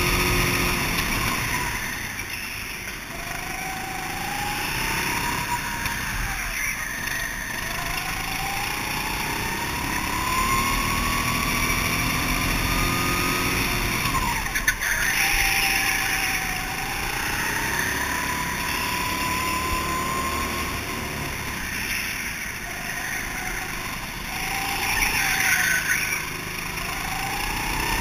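Rental go-kart engine heard from on board, its pitch rising steadily as the kart accelerates and falling away sharply when the driver lifts for each corner, several times over.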